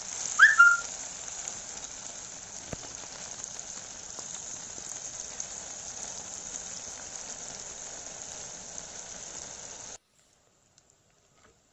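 Marinated kethal fish pieces deep-frying in coconut oil in a clay pot: a steady hissing sizzle that cuts off suddenly about ten seconds in. A brief high squeak sounds about half a second in.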